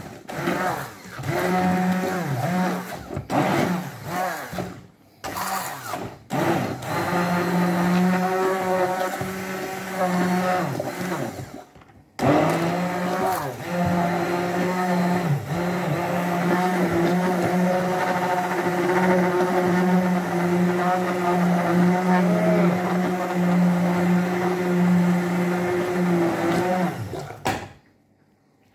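Hand-held immersion blender running in a saucepan, puréeing cooked courgette and potato into a smooth soup. It runs in short stop-start bursts at first, then, after a brief stop about halfway, runs steadily until it is switched off near the end.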